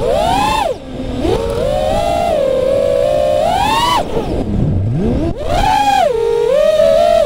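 FPV freestyle quadcopter's brushless motors whining, the pitch swooping up and down as the throttle changes, with sharp drops about a second in and again near four seconds. Wind rush on the onboard camera's microphone lies under the whine.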